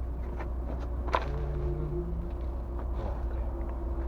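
Light clicks and knocks of hand work on a truck engine as the oil filter is fitted, with one sharper knock about a second in, over a steady low hum.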